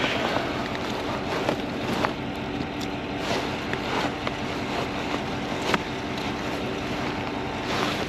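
A vehicle engine idling steadily, with scattered sharp clicks and knocks over it.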